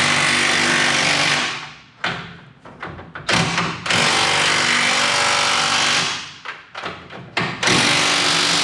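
Impact wrench hammering in three long bursts with short blips between them, driving a fastener home on the truck's front suspension until the parts pull together and close a gap.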